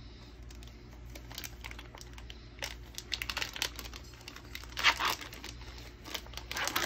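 Sterile IV tubing package being peeled open and handled, its plastic wrapper crinkling and tearing in irregular bursts, loudest about three and five seconds in.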